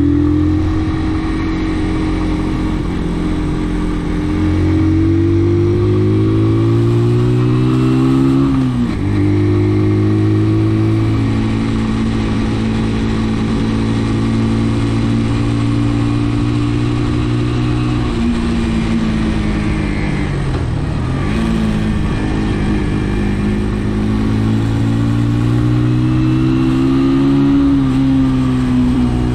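Brixton motorcycle engine running under way, its note holding steady or slowly rising between two brief pitch drops about nine and twenty-one seconds in, as the throttle comes off and picks up again. A steady rushing hiss runs underneath.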